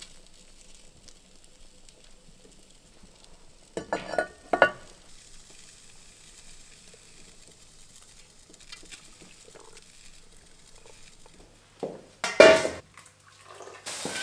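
Faint steady bubbling and sizzling of food simmering in a dish, broken twice by short clatters of cookware, about four seconds in and again, louder, near the end.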